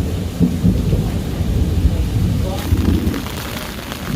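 Rain with a loud, uneven low rumble that swells and dips throughout.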